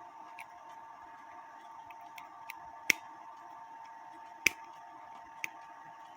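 Scattered sharp metal clicks as small parts of a cuckoo clock movement are worked by hand while a retaining wire is bent. The clicks are irregular, two louder ones about three and four and a half seconds in, over a steady faint hum.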